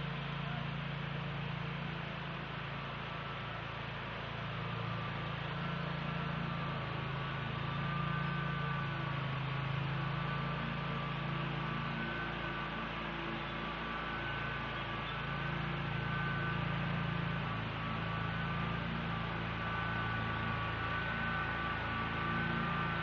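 Water passing through a reservoir's main flood gate: a steady hum with a rushing hiss and two faint high whistling tones.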